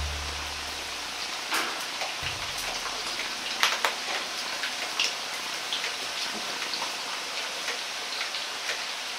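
Floured chicken pieces deep-frying in hot oil, about 170 °C, in a wok: a steady sizzle with sharp crackles and pops as more pieces are dropped in by hand.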